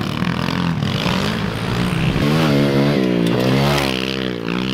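Small single-cylinder four-stroke pit bike engines on a dirt track, the revs rising and falling over and over as the throttle is rolled on and off through the corners.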